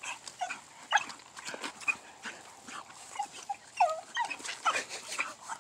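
A dog whining in short, high whimpers, with scattered light taps and clicks. It is eager to get at a chicken just out of its reach.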